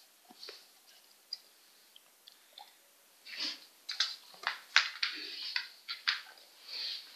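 A dog biting and crunching into a large snowball. A quick run of sharp crunches starts about three seconds in, after a few faint ticks, and there is another burst of crunching near the end.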